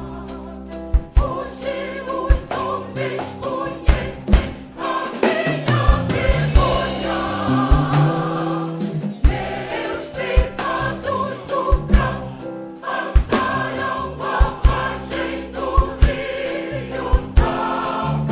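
Choir singing a gospel song with instrumental accompaniment and a steady beat.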